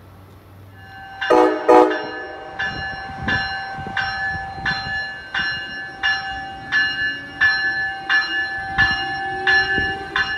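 Two short train horn blasts, then a locomotive bell ringing steadily, about three strikes every two seconds.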